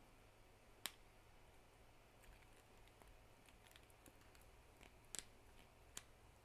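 Faint clicks of a 3D-printed plastic articulated sloth being handled, its print-in-place joints clicking as they are moved: a sharp click about a second in, a quick double click near five seconds and another near six, with softer ticks between.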